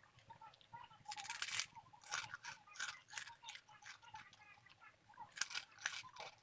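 Crunchy food being bitten and chewed close to the microphone. Two louder crunches about a second in and near the end, with smaller crunches between.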